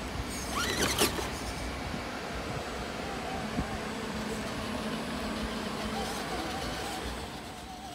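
Radio-controlled scale crawler's electric motor and drivetrain whining in short revs as it climbs over a concrete ledge, with a knock about a second in, over steady background noise.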